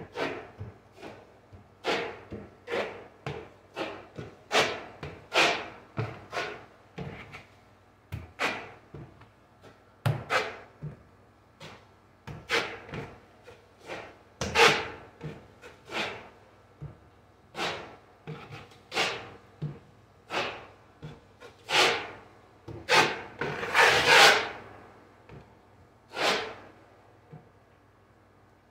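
Drywall knife scraping joint compound across a taped patch on a drywall wall, in a quick run of short strokes, one or two a second. The loudest, longest stroke comes a little after twenty seconds in, and the strokes stop a couple of seconds before the end.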